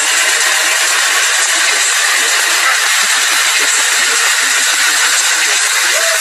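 Very loud, steady hissing noise like static, a deliberately ear-splitting sound effect in an animation meme. It keeps the same level throughout and cuts off at the very end.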